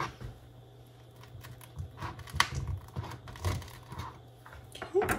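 Kitchen knife crunching through the crisp baked edges of thin blondies and knocking on a plastic cutting board: a string of separate crackles and ticks, the sharpest about two and a half seconds in.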